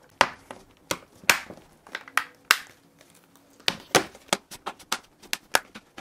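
Galaxy Tab S2 back cover being pressed back onto the tablet: about a dozen sharp, irregular clicks and snaps as its edge clips seat along the rim.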